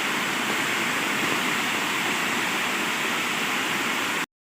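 Steady rush of flowing water, an even unbroken noise that cuts off suddenly near the end.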